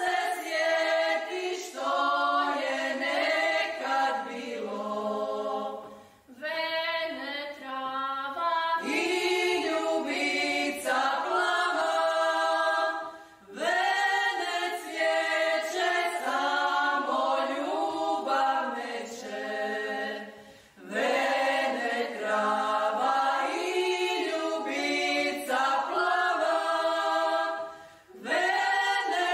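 A choir singing unaccompanied, in phrases several seconds long separated by brief pauses.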